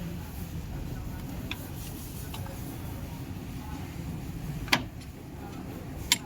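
Hand tools and parts clinking during engine work: a few faint ticks, then two sharp clicks near the end, over a steady low background rumble.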